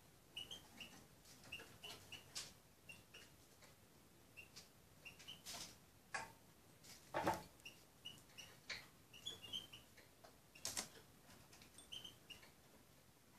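Small finch pecking food from a glass bowl: irregular light clicks and taps of its beak on the glass and food, with one louder knock about seven seconds in, mixed with soft short high chirps.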